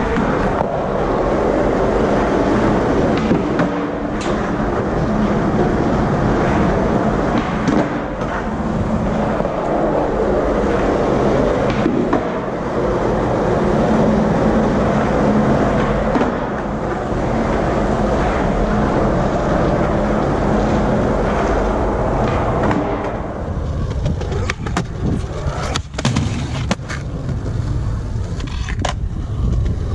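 Skateboard wheels rolling on a smooth indoor hallway floor: a steady rolling rumble with occasional clicks of the board. About 23 seconds in it changes to a skateboard rolling on skatepark concrete, quieter, with several sharp clacks of the board.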